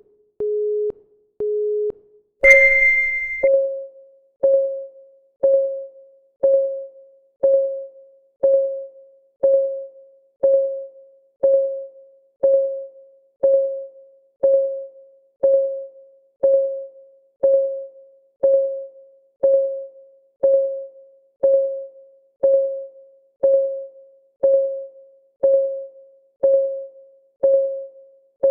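Countdown timer's synthesized ticking: short electronic beeps about a second apart, then a louder, higher start tone about two and a half seconds in, after which one pitched tick sounds every second, each fading quickly.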